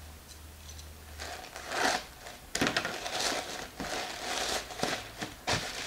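Plastic mailer bag crinkling and rustling as it is pulled and torn open by hand, in irregular bursts that start about a second and a half in.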